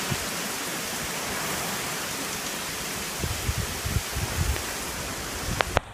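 Heavy thunderstorm rain pouring down in a steady, dense hiss, with a few low thumps in the second half. The upper hiss drops off suddenly just before the end.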